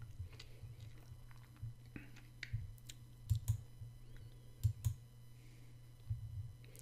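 Computer mouse clicks: a scattered series of short, sharp clicks as menu items are picked, over a low steady hum.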